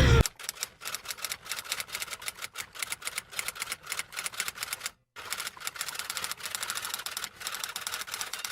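A fast, even run of typewriter-style key clicks, with a brief break about five seconds in.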